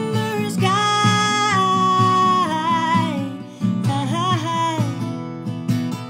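A woman singing long held notes over a strummed acoustic guitar. A long phrase fills the first three seconds, and a shorter one follows about four seconds in, with the guitar chords running underneath.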